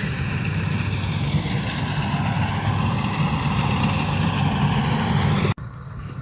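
An engine running steadily, its noise cutting off abruptly about five and a half seconds in.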